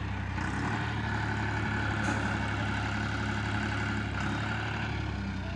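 John Deere farm tractor's diesel engine running steadily under load, pulling a heavily loaded sugarcane trailer on a chain, with an even low engine hum.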